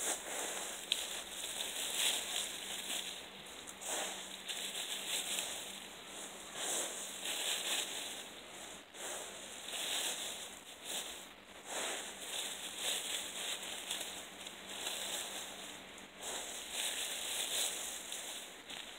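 Dry fallen leaves rustling and crunching as they are gathered and stuffed by the handful into a pair of pants, in repeated swells every second or two.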